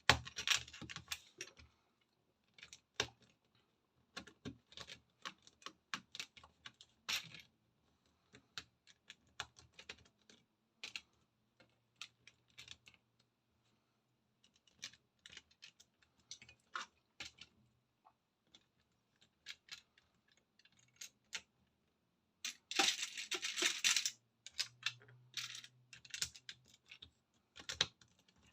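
Small plastic LEGO pieces clicking and rattling as they are handled and pressed together. The clicks come irregularly, with a denser burst of rummaging through loose bricks a little after the middle.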